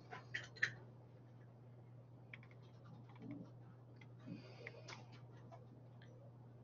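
Faint scattered clicks and taps over a steady low hum, with a small cluster in the first second and a few more later on.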